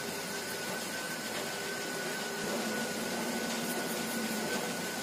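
Steady machine hum and hiss with a thin, high, steady whine, as from a running room appliance or fan.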